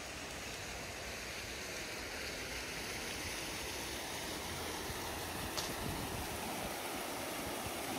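Fountain jets splashing into a basin, a steady rushing of water that grows a little louder toward the end, with one short click a little past halfway.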